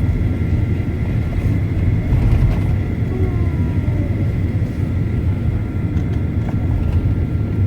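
Steady cabin drone of a Boeing 737-900ER with its CFM56-7B turbofan engines running: a heavy, even low rumble with two thin, steady whines above it.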